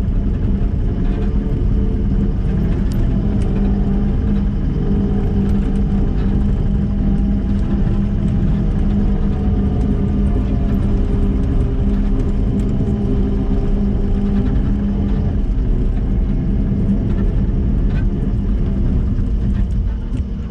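Kubota SVL97-2 tracked skid steer's four-cylinder turbo diesel running at a steady speed, with a few light knocks over it.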